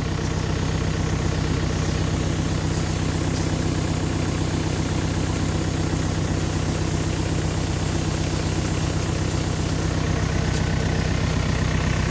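Tractor engine running steadily at a constant speed while an orchard sprayer jets its stream, the engine drone even and unchanging throughout.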